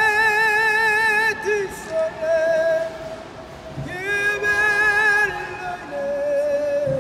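A male gondolier singing solo and unaccompanied, holding long notes with vibrato in several sung phrases.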